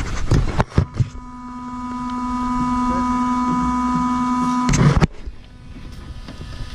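A few clicks and knocks, then a steady electrical hum that slowly gets louder for about three and a half seconds and stops with a thump.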